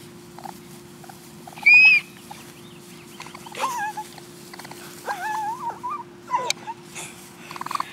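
Baby raccoons calling: one short, loud, high-pitched squeal about two seconds in, then several quieter wavering whimper-like calls.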